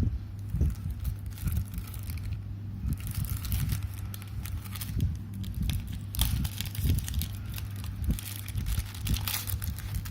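Packaging being handled: plastic or paper crinkling and tearing in irregular rustles, with small clicks and dull handling knocks.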